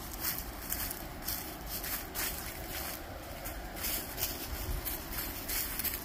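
A hiker's footsteps walking along a trail, about two steps a second, over a steady low rushing noise.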